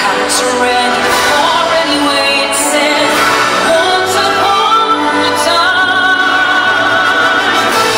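Orchestral show music with sustained singing voices, played loudly and steadily over a sound system.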